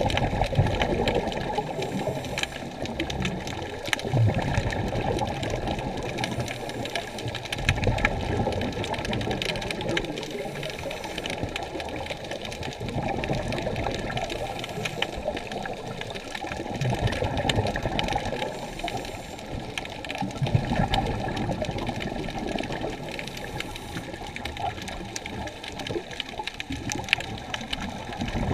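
Muffled underwater water noise, sloshing and rushing as heard from a camera submerged in the sea. It rises and falls unevenly every few seconds.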